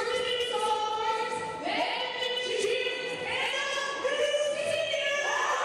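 Several voices singing together in long held notes, the chord changing every second or two.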